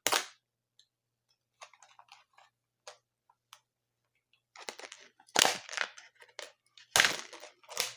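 New groove joint pliers being worked out of their packaging: scattered small crackles and clicks, with louder bursts of crinkling and rustling about five and seven seconds in.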